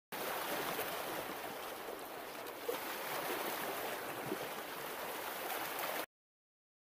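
Steady rushing noise that cuts off suddenly about six seconds in.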